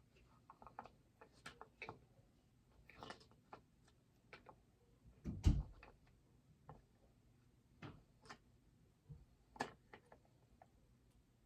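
Scattered small clicks and taps as a bobblehead is handled and fitted onto its base, with one louder knock about five and a half seconds in.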